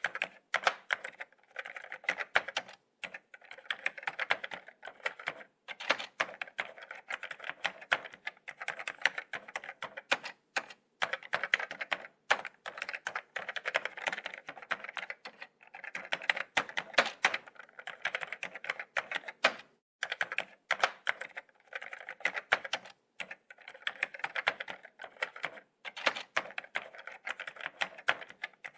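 Laptop keyboard being typed on: quick, irregular key clicks in runs of a second or two, with short pauses between.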